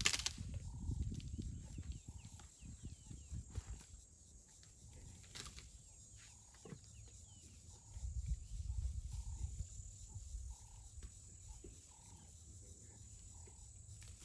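African elephants browsing on a bush: rustling and snapping of branches, with a sharp crack at the very start and another about five seconds in, over a low rumbling noise. A bird repeats a short note about once a second, and a thin, steady high insect buzz runs underneath.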